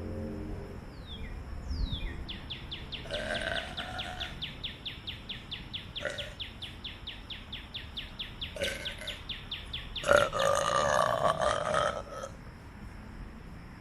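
A person burping: a short burp about three seconds in, a brief one near nine seconds, and a long, loud burp of about two seconds starting around ten seconds in. A fast, even chirping runs in the background until the long burp.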